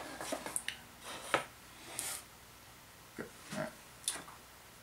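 A few light knocks and scrapes, about a second apart: wooden dovetail drawer boards being set on the bench and a brush picked out of a plastic tub.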